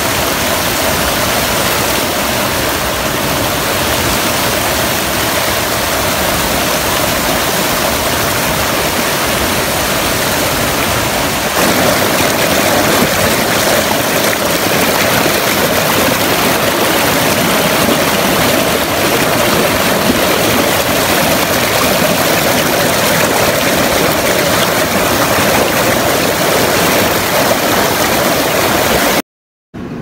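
Rushing water of a rocky river: a steady, loud, even rush that gets a little louder about a dozen seconds in and cuts off briefly near the end.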